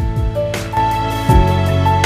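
Background music with held chords and a deep, regular beat.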